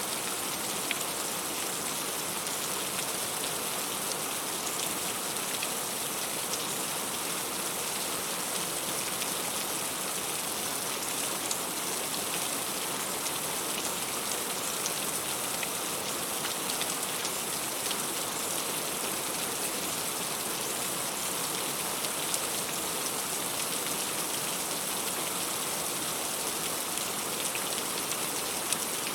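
Heavy rain falling steadily, a dense even hiss with scattered sharper drop taps standing out now and then.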